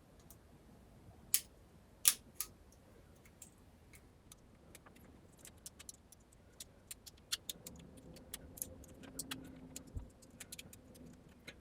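Small plastic and metal parts of a disassembled smartphone and tools being handled, clicking and tapping. Three sharper clicks come near the start, then a long run of lighter, irregular clicks.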